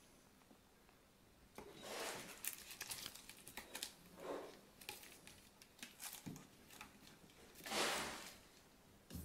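Kittens scrabbling in and around a plastic wastebasket: a run of short rustling, scratching scrapes starting a second or two in, the loudest near the end.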